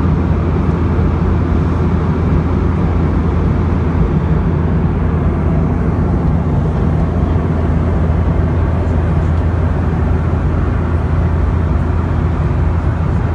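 Steady drone inside the cabin of a Boeing 717-200 in flight: its rear-mounted Rolls-Royce BR715 turbofans and the rush of air past the fuselage, with a constant low hum beneath.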